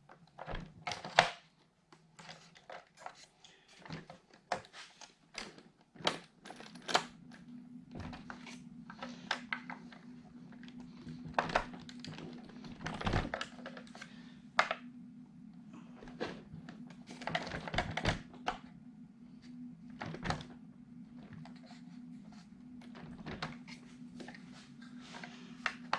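Irregular clicks, taps and knocks of hard plastic and metal parts being handled as the dog bones are worked into an RC truck's drivetrain. A steady low hum comes in about seven seconds in.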